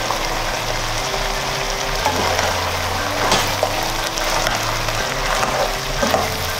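A pot of stew simmering with a soft sizzle as bell pepper strips are dropped in and stirred through with a plastic spatula, with faint scrapes against the pan. Background music with a slow bass line plays underneath.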